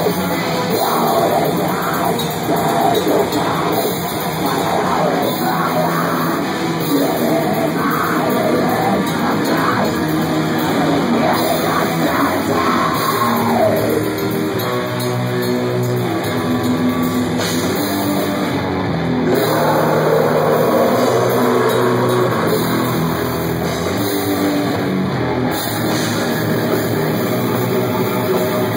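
Live metal band playing at close range: electric guitars, bass guitar and a drum kit, with vocals.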